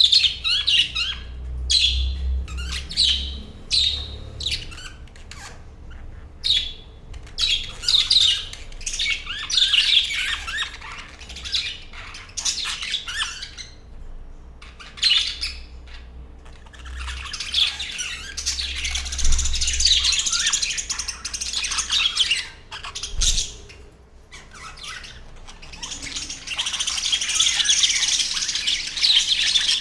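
A flock of budgerigars chirping and chattering, many birds calling at once in rapid warbling bursts with sharper squawks, swelling into continuous chatter twice.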